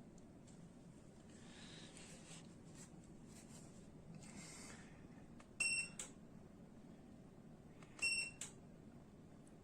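Two short electronic beeps about two and a half seconds apart, each with a small echo blip, over a faint steady low hum: a DC ceiling fan's control unit beeping as it accepts remote-control commands.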